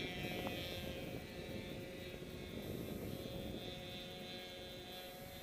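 Laser 200 RC aerobatic plane in flight, its motor and propeller making a steady pitched drone. The drone weakens a little midway and grows again near the end.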